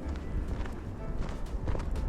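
Footsteps crunching through fresh snow at a walking pace, over a steady low rumble.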